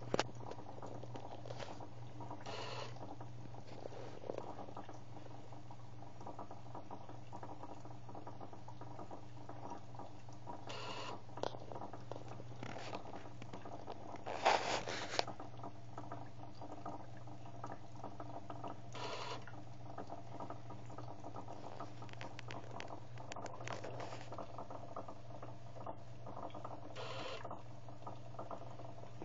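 Small peristaltic dosing pump running with a steady low hum, broken by a few short scrapes and soft liquid patter. The loudest of these comes about halfway through.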